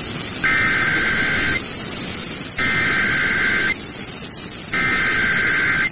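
Emergency Alert System SAME header: three identical bursts of two-tone digital data, each about a second long and about a second apart, over steady radio hiss. It marks the start of a relayed NWS alert, here a tornado warning.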